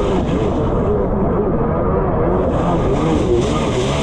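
Jet ski engine running at speed, its pitch rising and falling again and again as the craft skips over choppy water, with a rush of wind and spray.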